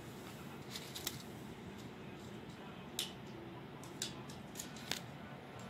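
Handling noise: about six short, sharp clicks and light taps, spread over a few seconds, above a steady low hiss, from a hand-held phone and the statue being moved close to the microphone.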